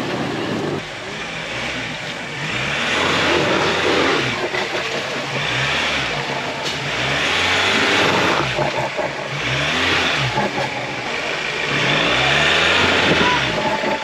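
Engine of an off-road 4x4 revving up and down in repeated bursts as it crawls up a rutted, muddy trail, the pitch rising and falling every couple of seconds.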